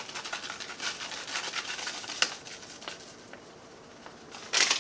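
Dry onion soup mix shaken from a packet, pattering and rustling onto chopped vegetables in a slow cooker for about two seconds, with a sharp click just after. A short, louder rustle near the end.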